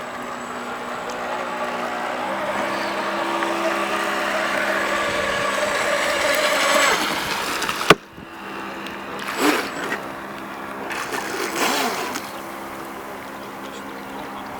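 Electric drive of a radio-controlled model boat, a 550 brushed DC motor, whining steadily and growing louder for several seconds before its pitch drops. A sharp click comes about eight seconds in, and then the motor winds down and back up twice.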